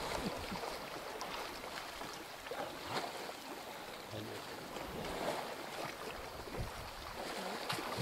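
Water sloshing and splashing as elephants wrestle and roll in a river pool, with now and then a louder splash.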